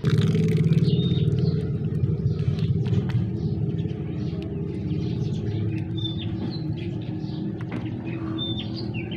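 Water pouring steadily into a plastic tub of falsa berries to wash them. It starts abruptly and eases slightly. A few short bird chirps come over it.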